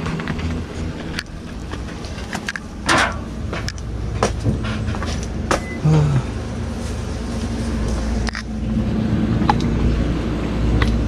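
A person walking into a small shop: irregular footsteps and handling clicks and knocks, the sharpest around three and six seconds in, over a steady low rumble that grows a little louder near the end.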